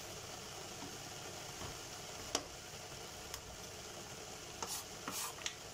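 Chef's knife chopping a bar of dark chocolate on a wooden cutting board: a few scattered sharp knocks, the loudest about two seconds in and a small cluster near the end, over a faint steady hiss.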